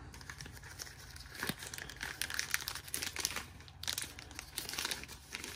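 Clear plastic tool-kit bag crinkling in the hands as items are pulled out of it, in uneven clusters of crackles.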